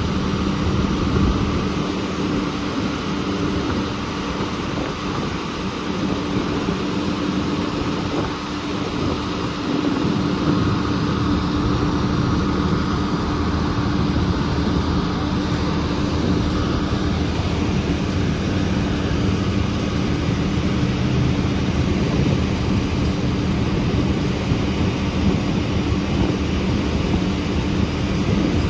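Heavy diesel truck engine running at a steady speed, a constant hum over a low rumble.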